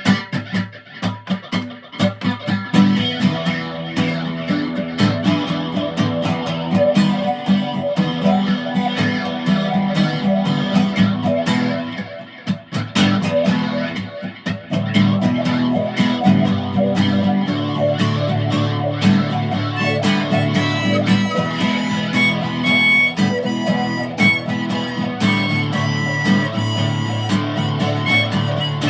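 Electric guitar played through a small VOX modeling amp, a song with a steady low rhythm part; higher held notes join in about twenty seconds in.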